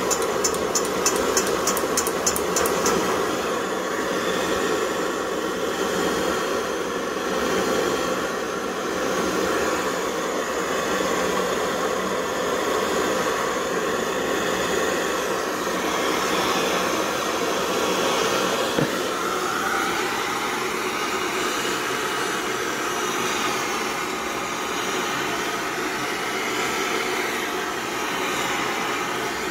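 Pressurised kerosene pump stove burner running on waste cooking oil, a steady hiss of burning vapour under a kettle. A quick run of clicks, about five a second, sounds in the first three seconds, and the hiss shifts slightly in tone about two-thirds of the way through.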